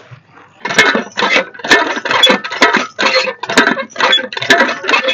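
Metal hand pump worked in quick strokes, about three a second, starting about a second in. Each stroke gives a metallic clank and squeak as water gushes from the spout in pulses.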